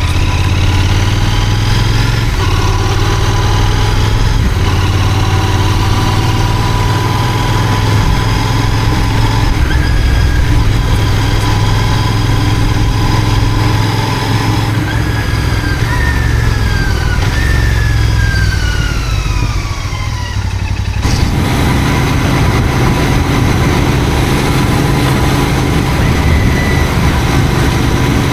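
Royal Enfield GT 650's 648 cc parallel-twin engine running loud and steady. Several high whines fall in pitch in the second half, and the sound changes abruptly a little over two thirds of the way through.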